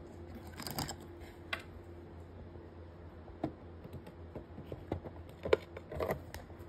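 Scattered light clicks and taps of handling, irregular like typing, the sharpest about five and a half seconds in, over a low steady hum.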